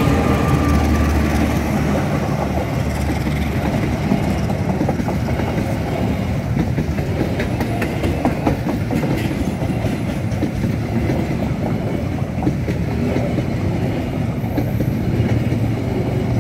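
A diesel locomotive passes close by at speed, its engine's deep rumble strongest in the first few seconds. A long string of passenger coaches follows, rolling past with a steady rumble of wheels and clickety-clack over the rail joints.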